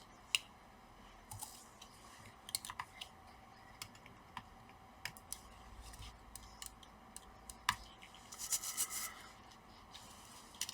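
Faint scattered clicks and light scratching of small-parts handling as the adhesive sticker over the Wi-Fi antenna cables inside an opened laptop is peeled away, with a short crinkly rustle near the end.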